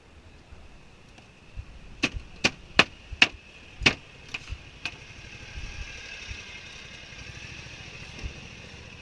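Jerk chicken being chopped with a cleaver on a wooden block: a quick run of five sharp chops about two seconds in, then a couple of lighter ones, over a low steady engine hum.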